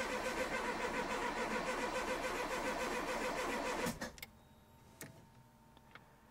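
Car's starter motor cranking the engine with a steady whine and a pulsing beat, the engine not catching, then cutting off about four seconds in, followed by a few faint clicks. The engine is failing to start for lack of fuel reaching it.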